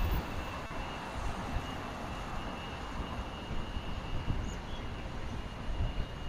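Street ambience beside a multi-lane city boulevard: a steady wash of traffic noise with irregular low rumbling, and a thin steady high-pitched tone throughout.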